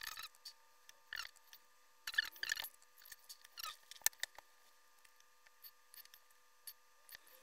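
Faint scattered clicks and brief rustling noises near the microphone, a small cluster about two seconds in, over a faint steady electrical whine.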